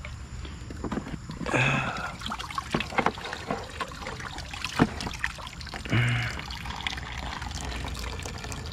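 Pond water trickling and splashing while the pond filter is cleaned out by hand, with scattered clicks and knocks.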